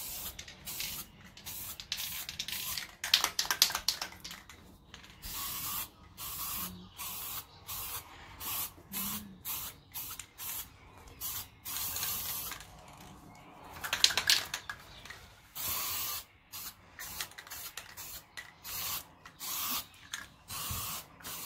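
Aerosol can of metal primer spraying in many short hissing bursts with brief gaps between them, laying down a first coat of primer. A few sharper clicks stand out, a few seconds in and again about two-thirds through.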